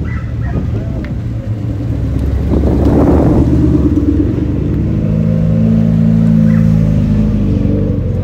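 Cars pulling away one after another, among them a Ford Mustang and a first-generation Mazda Miata, their engines revving as they accelerate. There is a rough rev about three seconds in, then a loud, steady engine note that climbs slightly near the end.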